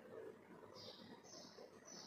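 Near silence: quiet room tone, with three faint, short high-pitched sounds in the second half.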